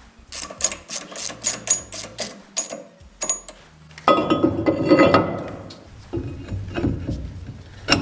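Ratchet wrench clicking in quick, regular strokes, about three or four a second, as socket head cap screws are run in to fasten a brake bracket. A louder stretch of metal clatter follows about four seconds in, then a few more clicks.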